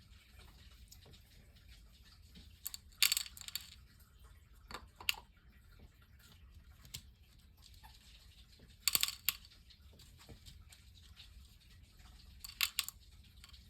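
Small supplies being picked up, shuffled and set down: about four short bursts of clattering and clicking, with quiet handling noise in between.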